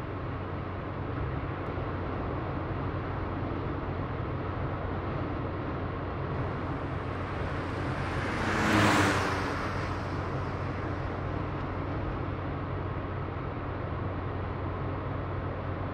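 Steady road traffic noise, with one vehicle passing by that swells to its loudest about nine seconds in and then fades.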